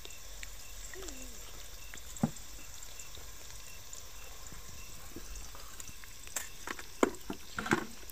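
Sliced onions sizzling steadily in hot cooking oil in a pot. A sharp click about two seconds in and a few louder clicks and knocks near the end.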